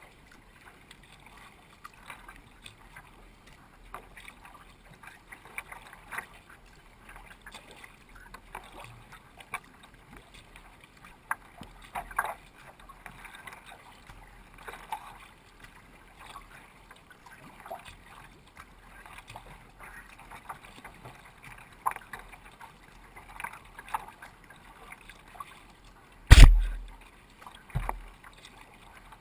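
Water lapping and splashing along a sea kayak's hull as it is paddled through small chop, a light, uneven patter of drips and slaps. About 26 seconds in comes a sudden loud knock right at the camera, with a smaller one a second or so later.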